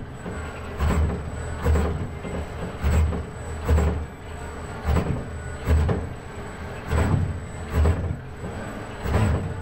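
ABB industrial robot arm's joint motors and gearboxes whirring in surges about once a second as the arm makes short painting strokes, over a thin steady high tone.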